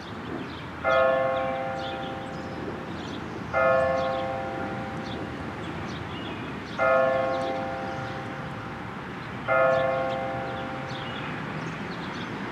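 Tower bell striking the hour: four strokes of the same bell, about three seconds apart, each ringing on and fading before the next.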